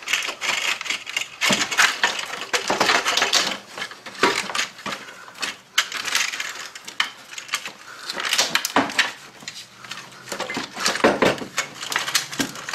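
Cast-iron rear exhaust manifold of a 3800 V6 being wiggled off its studs and worked out past the firewall: an irregular run of metal clinks, clanks and scrapes.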